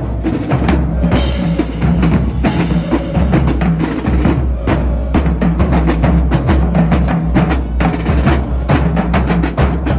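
Marching band drumline playing a cadence: fast snare drum hits over steady bass drum beats.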